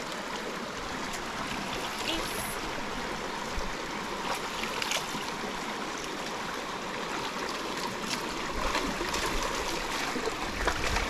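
Shallow stream running over rocks, a steady rush of water, with scattered small splashes that come more often near the end.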